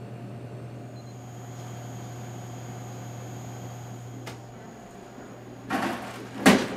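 Snack vending machine humming steadily, a faint click about four seconds in; near the end a rustle and then a loud knock as a snack is taken out through the machine's delivery bin flap.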